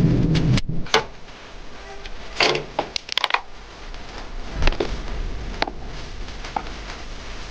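A loud rushing noise cuts off about half a second in. Then come scattered clicks and light knocks, about half a dozen over the next six seconds, from small parts and tools being handled on a repair bench.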